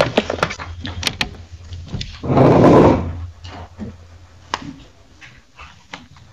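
Pages of a thick paper case file being handled and turned close to the microphone: scattered papery clicks and one loud rustle about two and a half seconds in, over a steady low hum.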